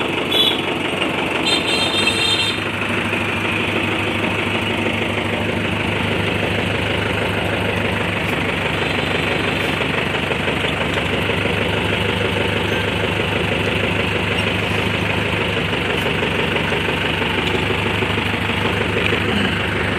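Mahindra Arjun Novo 605 tractor's four-cylinder diesel engine running steadily, with a few light clinks in the first couple of seconds.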